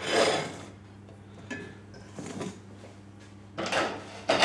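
Kitchen clatter of pans and dishes being moved and set down at the sink: a louder clatter at the start and another at the end, with a few light knocks between, over a steady low hum.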